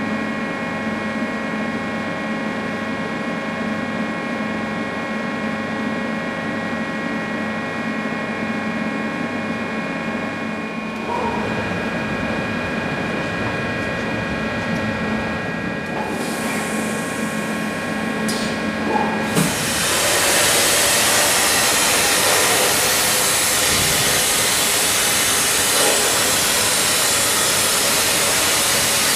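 FICEP CNC beam line running with a steady hum and several steady whining tones. After a short hiss of gas, a plasma cutting torch strikes about two-thirds of the way through, and a loud steady hiss takes over as it cuts the steel beam.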